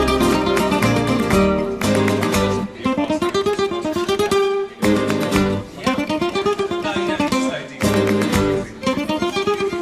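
Spanish-style acoustic guitar music in a flamenco manner: quick plucked runs that rise and fall, broken by a strummed chord about every three seconds.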